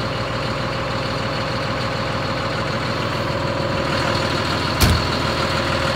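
Caterpillar 140M2 motor grader's diesel engine idling steadily while it warms up in freezing cold. A single sharp thump sounds about five seconds in.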